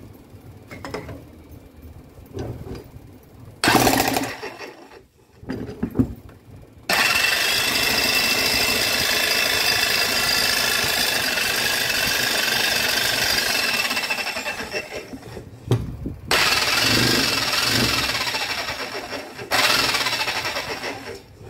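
Makita HM1306 electric demolition hammer running on and off as its trigger is worked: a short burst about four seconds in, a steady run of about nine seconds starting about seven seconds in, then another short run near the end. Each run starts and stops abruptly.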